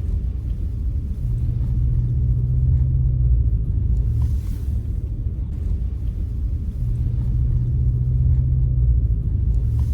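Low rumble of a pickup truck driving on a snowy road, heard inside the cab, with a steady engine drone that swells in twice and fades.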